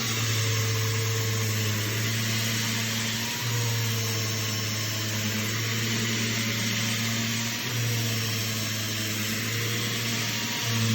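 Electric power sander running steadily on weatherboards, a low motor hum under a fine hiss of abrasive on wood. The hum dips briefly three times, about 3, 7.5 and 10.5 seconds in.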